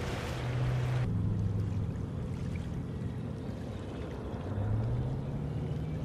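Diesel engines of amphibious assault vehicles running as they swim, a steady low drone. A harsher, noisier engine sound cuts off abruptly about a second in. A low engine note rises in pitch about four and a half seconds in as an engine revs up.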